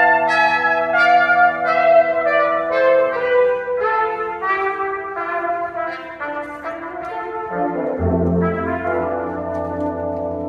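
Brass quintet of trumpets, French horn and tuba playing a run of short, detached notes; about eight seconds in a low bass note comes in beneath held chords.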